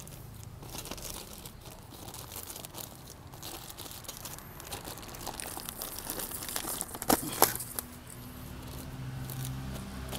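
Plastic packaging crinkling and rustling as the radiator guard is handled and unwrapped, with two sharp clicks about seven seconds in.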